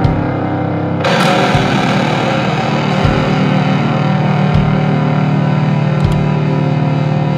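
Funeral doom metal: slow, heavily distorted guitar chords held in a dense wall of sound, with a low drum hit about every second and a half. A new, louder chord crashes in about a second in.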